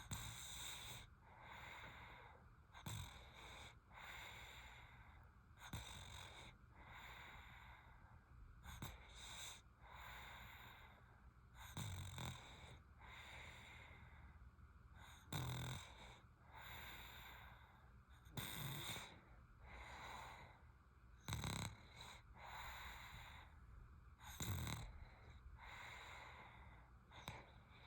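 A sleeping baby snoring faintly, a snoring breath about every three seconds, some of them stronger and lower-pitched snorts.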